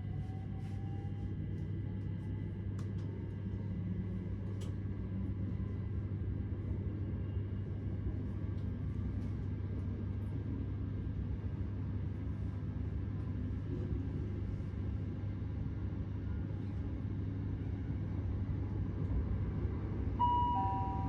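Cabin noise inside a Class 387 Electrostar electric multiple unit under way: a steady low rumble of the running train, with a faint rising whine in the first second. About 20 seconds in, the on-board passenger announcement system sounds a two-note chime, higher then lower.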